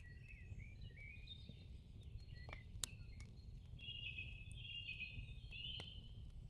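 Faint birdsong: short, wavering chirping and warbling phrases over a low background rumble, with a few soft clicks.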